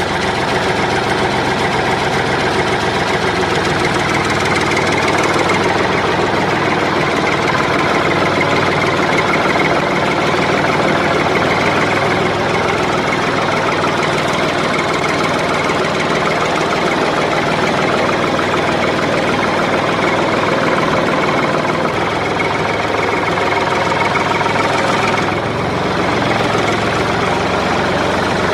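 A tractor-type engine running steadily with a knocking beat, as of a mini tractor chugging along; the sound dips briefly near the end.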